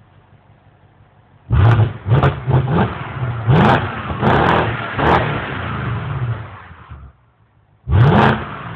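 BMW X5 4.8i's 4.8-litre V8 idling quietly, then blipped through a quick series of throttle revs for about five seconds before dropping back to idle, and revved sharply once more near the end.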